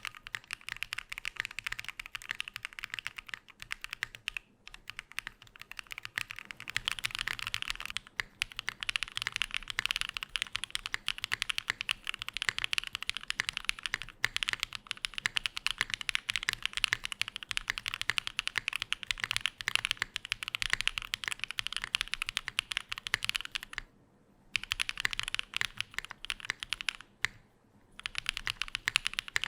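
Fast typing on a Frog Mini mechanical keyboard with a laminate plate, no case foam and lubed switches: a dense run of key clacks, broken by brief pauses about four, eight, twenty-four and twenty-seven seconds in.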